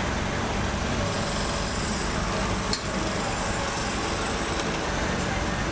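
Steady rumble of passing road traffic mixed with open-air hawker-stall noise, with one sharp click about halfway through.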